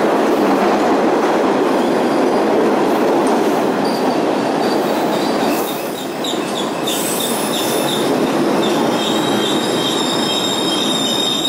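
MBTA Orange Line subway train running past along the platform in an underground station, a loud steady rumble of wheels on rail. From about halfway a high-pitched wheel squeal joins in and grows strongest near the end.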